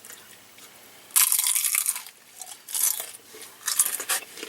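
Crunchy food being bitten and chewed close to the microphone: three crackling crunches, the first and loudest about a second in.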